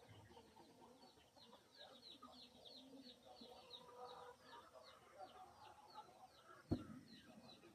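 Birds calling faintly: a rapid, steady run of short, high, falling chirps, about three or four a second, with lower clucking calls beneath. A single sharp click near the end.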